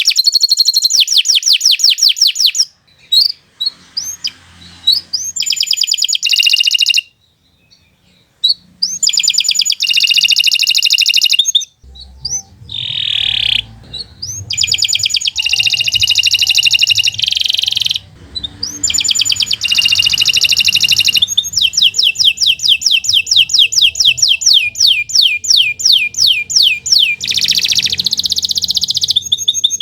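Domestic canary singing a long, fast song of rapid trills and rolls of repeated high notes, in long phrases broken by a few short pauses.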